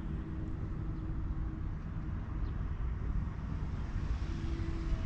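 Wind buffeting the microphone: a steady low rumble, with a faint steady hum showing up now and then.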